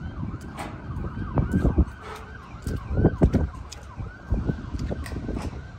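Emergency vehicle siren cycling in a fast yelp, its pitch sweeping up and down several times a second, with gusts of wind rumbling on the microphone.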